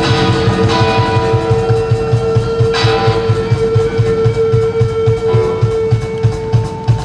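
Live rock band playing: electric guitar with a long held note over a steady pulsing low beat, about four beats a second.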